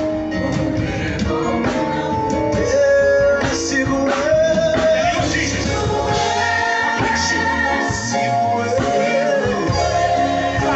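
Live gospel worship music: voices singing held, wavering notes over a band with guitar, keyboard and bass, played loud through a church PA.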